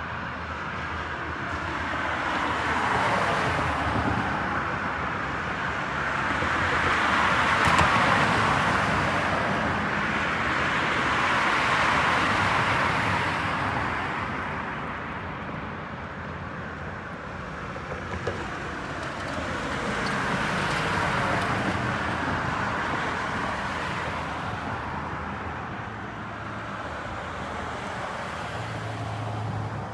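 Road traffic: vehicles passing one after another, the rush of tyres swelling and fading over several seconds with each pass.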